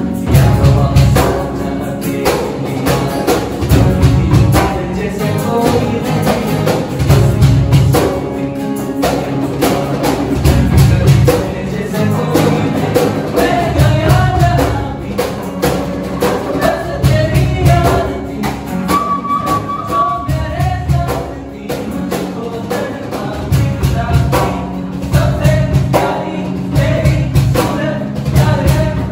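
A group of young male voices singing together over two strummed acoustic guitars, keyboard, flute and hand percussion on a box drum (cajón), with a steady beat.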